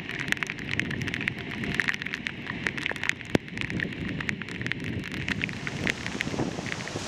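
Raindrops striking the camera and its microphone: a dense, irregular patter of small sharp ticks, over a low rush of wind and surf.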